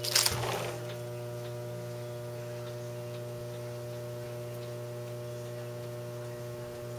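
A steady electrical hum with several even overtones. About a quarter second in, a brief noisy burst rises over it.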